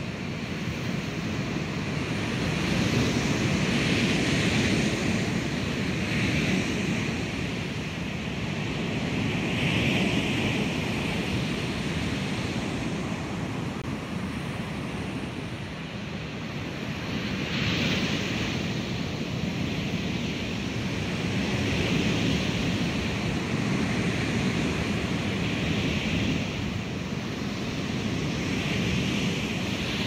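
Sampled ocean waves crashing on a shore, overlapping one after another in a continuous surf that swells every few seconds, each wave placed at a different spot in the 3D stereo field.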